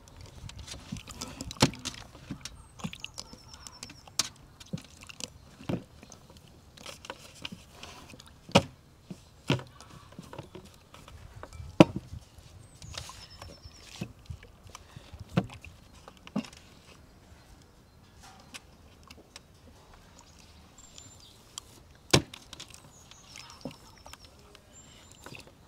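Hands squeezing and rubbing lumps of dried curd in water in a glazed ceramic bowl to dissolve it. Quiet sloshing with scattered sharp knocks at irregular intervals.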